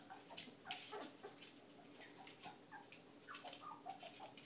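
Whippet puppies giving faint, repeated short high squeaks and whimpers, with light clicks of small paws and claws on the floor.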